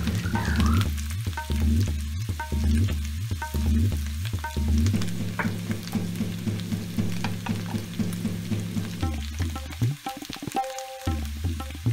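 Diced potatoes frying in oil in a nonstick pan, sizzling as a wooden spatula stirs and scrapes them, with light clicks from the turning. Background music plays under it.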